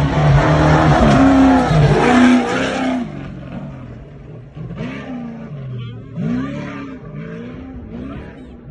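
Off-road race truck passing close at full throttle, its engine revving with rising and falling pitch, loudest in the first three seconds. It then fades as the truck climbs away, still revving up and down in repeated sweeps.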